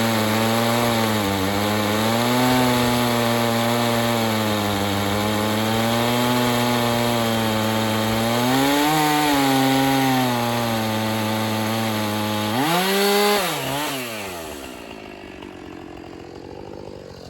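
Chainsaw on an Alaskan chainsaw mill ripping a 4-inch slab from a white oak log at held throttle, its pitch sagging and recovering with the load. About 13 seconds in it revs up sharply as the cut finishes, then winds down and fades.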